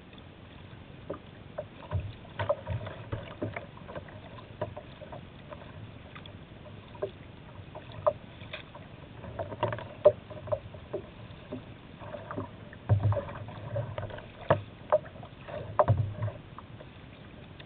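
Kayak moving through choppy river water: irregular splashes and sharp slaps of water against the hull over a steady wash, with a few heavier low thumps.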